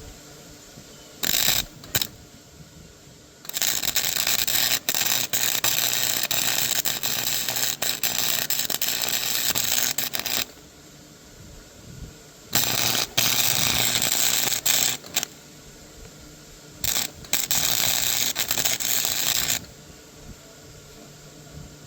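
Rapid ratcheting clicks in three long spells of several seconds each, with two short bursts near the start, from a part being tightened during mini bike assembly.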